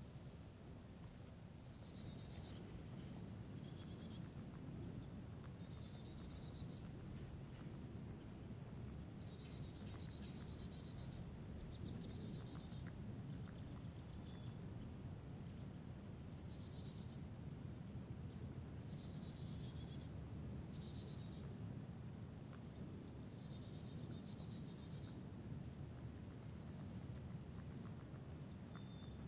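Small birds calling in the woods: short rapid trills repeated every few seconds, with scattered high thin chirps, over a faint low steady rumble.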